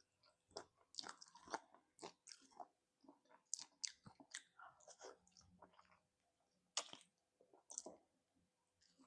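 Close-up mouth sounds of eating spicy chicken feet: chewing and biting, with irregular sharp clicks and small crunches as the skin and cartilage are nibbled from the bones.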